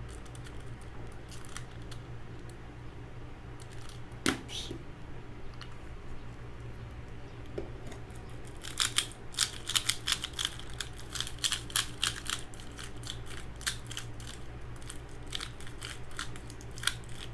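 Valk 3 3x3 speedcube freshly lubed with DNM-37: quiet handling with a single click about four seconds in, then from about nine seconds in a quick run of plastic clicks as the layers are turned, over a low steady hum.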